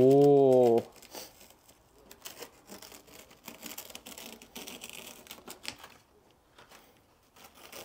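A man's drawn-out "ooh", then a paper stencil being peeled off painted car bodywork: faint, uneven crinkling and tearing of paper and adhesive that stops about six seconds in.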